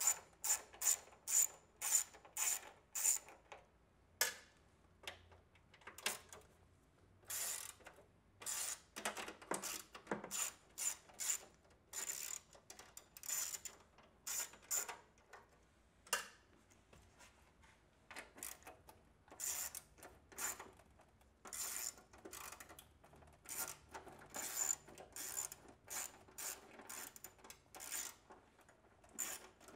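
Hand ratchet clicking in runs of quick strokes with short pauses, as screws are backed out of a drinking fountain's sheet-metal cabinet.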